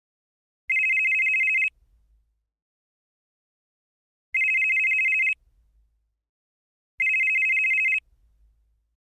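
Retro mobile phone ringing: three one-second bursts of a high electronic two-tone trill, a few seconds apart.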